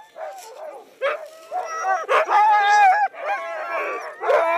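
Several sled dogs (huskies) barking, yipping and howling together, their calls overlapping. It gets louder about a second in, with longer held howls after about two seconds.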